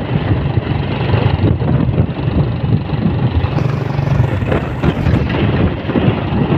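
A vehicle engine running while riding along, with wind rumbling and buffeting on the microphone. A brief higher hiss joins about halfway through.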